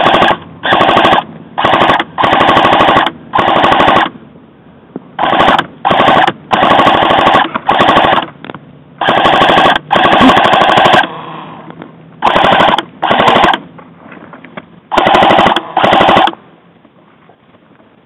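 Airsoft rifle firing close by on full auto: more than a dozen short bursts of rapid shots with brief pauses between them, stopping about two seconds before the end.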